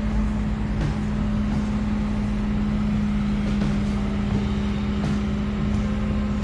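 Large bulldozer diesel engine running steadily, a constant low hum with rumble beneath and a few faint clicks.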